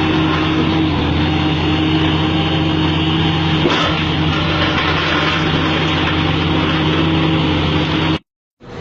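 Heavy construction machine's engine running steadily at a constant speed, with a brief knock about four seconds in; the sound cuts off suddenly near the end.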